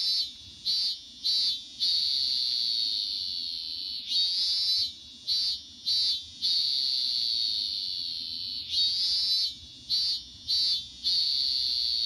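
Recorded song of a robust cicada (minminzemi) played through a children's toy's small speaker: a high buzzing call in repeated phrases, each a few short pulses followed by a long held drone that slowly fades, coming around three times.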